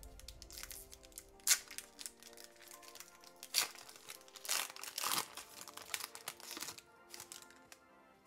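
Foil wrapper of a Pokémon card booster pack crinkling and tearing as it is opened by hand and the cards are pulled out, in a string of sharp crackles, over soft background music.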